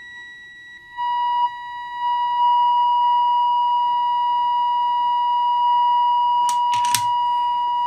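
Steady, high-pitched test tone from an RF signal generator, heard through a 1956 Bush VHF90 valve radio's speaker. It jumps louder about a second in and again a second later as the oscillator trimmer is tuned toward maximum signal at 1500 kc during AM alignment, then holds steady. A couple of brief clicks come near the end.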